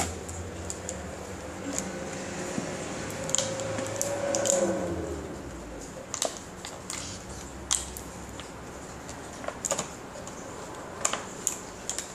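Clear plastic bag crinkling and crackling as it is handled and opened by hand, a run of sharp, irregular crackles.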